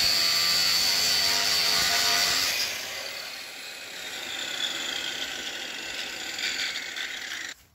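Angle grinder with a small grinding wheel grinding the end of a steel shear blade clamped in a vise, running with a steady high whine. About two and a half seconds in it comes off the work and the whine falls slowly as the wheel spins down.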